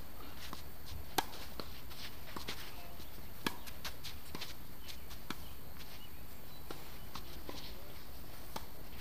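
Tennis balls struck by rackets during a doubles rally: sharp pops, the loudest about a second in and another about three and a half seconds in, with fainter taps and scuffs of players' feet on the court between them.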